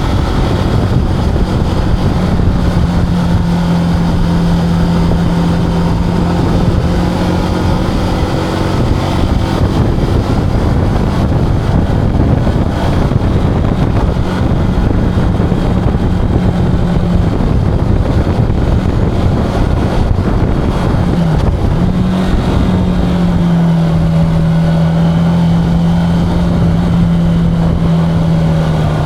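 Zontes cruiser motorcycle engine running at a steady cruise, heard under heavy wind rumble on the action-camera microphone. A little over two-thirds of the way through, the engine note dips briefly and picks up again.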